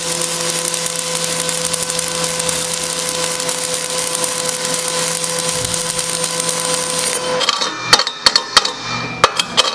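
Pulsed stick-welding arc crackling and hissing steadily with a faint steady hum, cut off about seven seconds in as the arc is broken. Then several sharp metal taps as pliers knock slag off the fresh weld bead.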